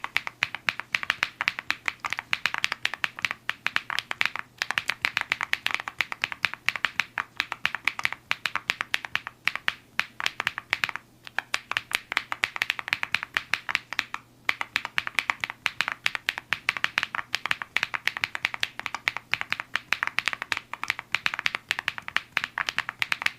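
Fast typing on a mechanical keyboard fitted with PBT Cherry-profile keycaps: a continuous stream of clacks, broken by a few brief pauses.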